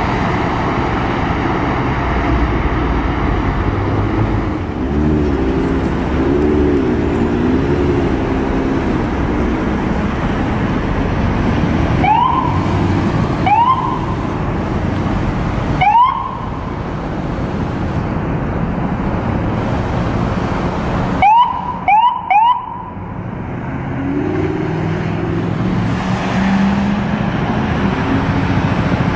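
Emergency vehicle sirens over steady street traffic: a wailing siren rises and falls for a few seconds, then six short, loud rising siren chirps, three spaced apart and then three in quick succession, and a fainter wavering siren near the end.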